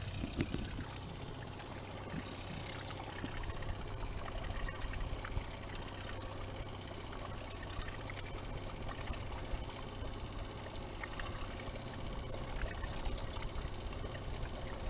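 Boat's outboard motor running steadily at trolling speed, with water washing against the hull.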